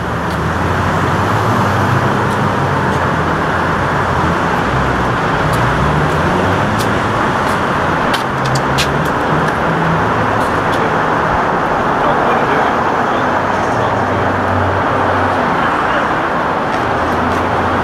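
Steady close-up noise of car engines running and passing street traffic, with a low engine hum that rises and falls and a few faint clicks.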